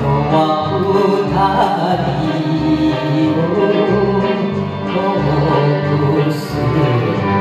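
A man singing a Japanese enka song into a karaoke microphone over a backing track with a steady bass beat.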